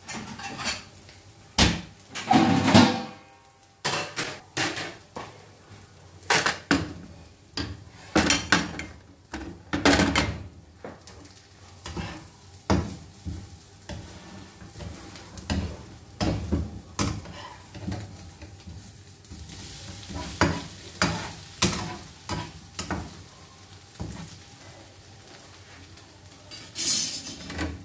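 A metal turner clinking and scraping in a non-stick frying pan, with food sizzling in the pan and scattered knocks of pans and plates.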